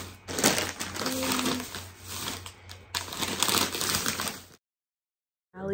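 Crackly rustling and crinkling handling noise close to the microphone, with a short voice-like sound about a second in; it cuts off abruptly into silence near the end.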